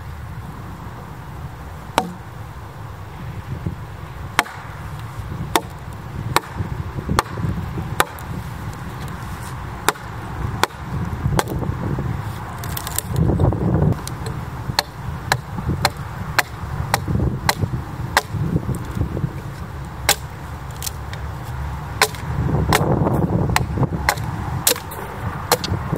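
A single axe hewing a split red oak board: a long run of sharp chopping blows into the wood, about one to two a second and coming faster in the second half.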